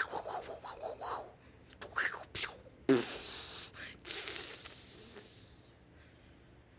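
A person making cartoon sound effects with their mouth: short voiced bursts and pops, then a long breathy "fwoosh" hiss about four seconds in that fades out near six seconds.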